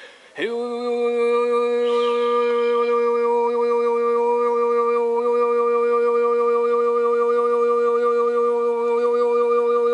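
A man's voice in overtone singing, gliding onto one steady held note about half a second in and sustaining it, with an upper whistle-like overtone wavering above the drone.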